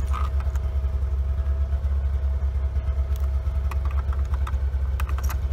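Snowmobile engine idling steadily, left running because of the extreme cold, with a few light clicks over it.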